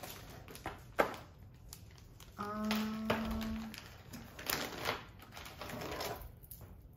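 Crinkling of a clear plastic bag being handled and opened to take out a beaded necklace, with a sharp knock about a second in. Near the middle a person hums one steady note for just over a second.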